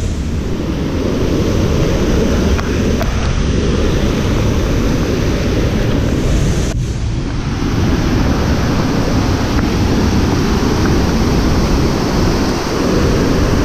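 Mountain stream in spate, white water rushing over boulders: a loud, steady roar close by.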